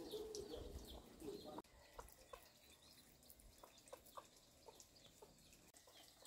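Low, soft clucking of a hen with her chicks, cut off sharply about a second and a half in. Faint, scattered short chirps follow.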